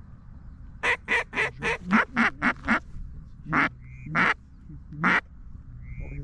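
Duck quacking: a quick run of about seven quacks, then three single quacks spaced out, with two short high whistles in between.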